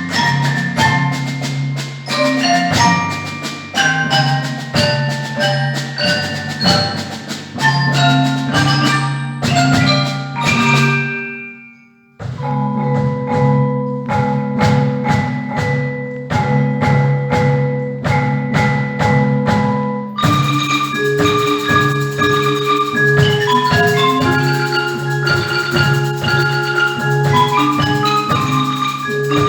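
Mallet percussion music: marimba-like struck bars played in fast runs of notes over a low ringing part. About ten seconds in the playing dies away into a short pause, then starts again, and about twenty seconds in it switches abruptly to another passage.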